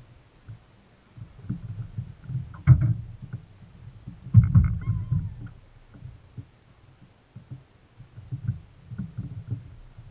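Irregular low thumps and bumps from people moving about on a boat's deck, with two sharper knocks, one a little past a quarter of the way in and one a little before halfway.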